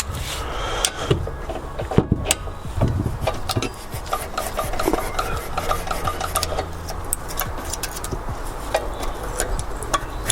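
Irregular small metallic clicks, taps and scraping of hand tools working on a small mower engine's valve gear while the valve clearances are set.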